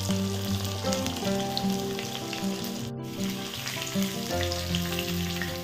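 Fish pieces deep-frying in hot oil in a wok, a steady crackling sizzle. Background music with held, changing notes plays over it.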